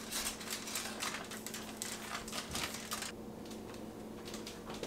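Foil and plastic wrapping crinkling in quick, irregular crackles as it is pulled off a rolled pie crust; the crackling thins out after about three seconds.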